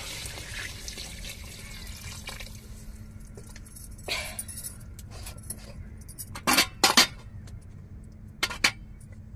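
Water pouring from a glass jug into an aluminium cooking pot, the pour tapering off about two seconds in. After that come several sharp clinks, loudest about two thirds of the way through.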